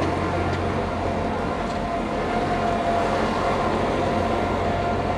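A train standing at the station with its equipment running: a steady low hum with a faint, steady whine on top.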